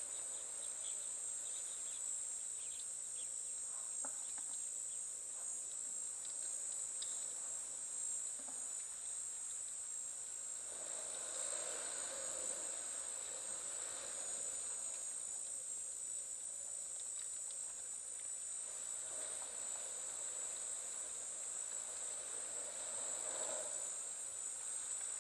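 Steady, high-pitched chorus of insects droning without a break, with a few soft swells of noise about halfway through and near the end.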